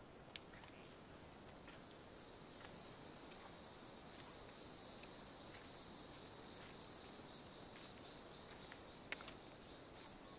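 A faint, steady, high-pitched insect chorus sets in about two seconds in and carries on, with a sharp click near the start and another near the end.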